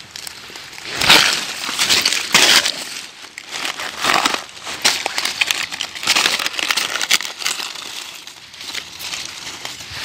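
Dry leaves and brush rustling and crunching in irregular bursts as the wounded dove is picked up out of the undergrowth, the loudest bursts about one and two and a half seconds in.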